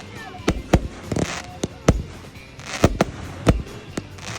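Fireworks display: a string of sharp bangs, about six or seven, unevenly spaced, with short bursts of crackling hiss between them.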